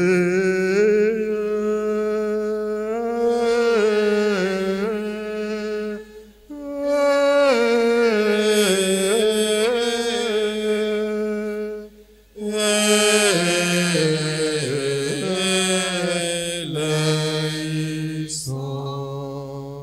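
Hymn singing between stations of the Way of the Cross: a short verse sung in three long phrases with brief breaks, the last ending on a held low note.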